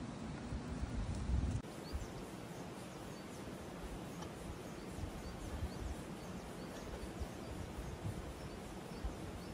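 Outdoor ambience: gusts of wind buffeting the microphone for the first second and a half, cutting off abruptly. Then a steady, even hiss with faint, scattered high ticks.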